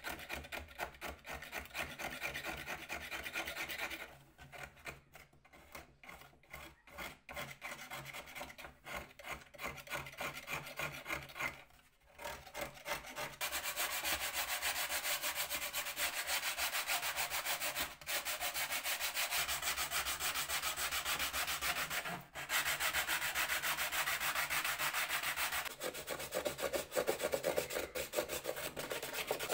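Wood being worked down by hand with an abrasive (sandpaper or file), in rapid back-and-forth strokes during a mandolin restoration. The strokes are lighter and more broken at first, stop briefly about twelve seconds in, then go on steady and louder.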